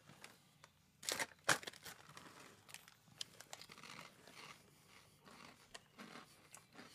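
Plastic snack bag of cocoa cereal puffs crinkling and rustling as it is handled and reached into, with a couple of sharper crackles about a second in, then faint scattered rustles.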